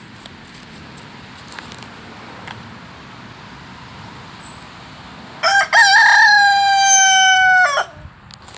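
A rooster crows once, starting about five seconds in: a short broken opening, then a long held note that falls slightly in pitch and cuts off.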